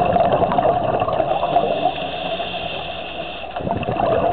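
Underwater bubbling and rushing with a steady hum, typical of a scuba diver's regulator exhaust bubbles. It eases off about two seconds in and surges back near the end, like the next exhalation.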